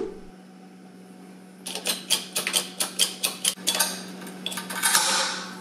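Hard objects clicking and clacking against each other, about a dozen sharp knocks over two seconds, then a brief scraping rustle, over a steady low hum.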